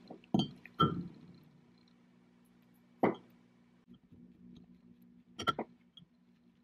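Metal spoon clinking against a ceramic mug while cutting banana slices into it. There are a few sharp clinks: two near the start, one about three seconds in and a quick pair near the end, over a faint steady hum.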